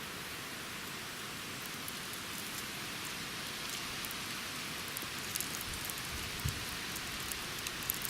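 Light rain pattering, with scattered sharper drop ticks that become more frequent in the second half.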